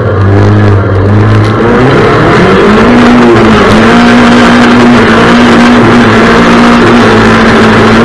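Rallycross race car's engine running loud at high revs, heard from on board: the pitch shifts over the first two seconds, then holds steady at full throttle from about three seconds in.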